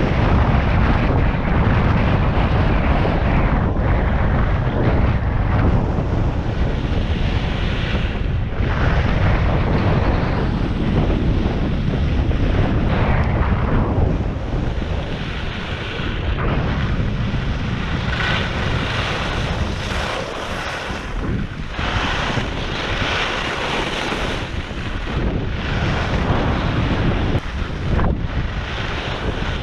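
Wind buffeting the microphone as a skier runs fast downhill, mixed with the hiss of skis on groomed snow. The noise is loud and steady, with more of the higher-pitched hiss in the second half.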